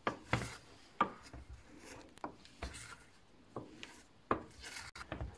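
Wooden spoon scraping and dragging along the bottom and sides of a stainless steel saucepan as it stirs a thick cheese filling, in irregular strokes about once a second. The drag at the sides is the sign that the filling has thickened and is about to start simmering.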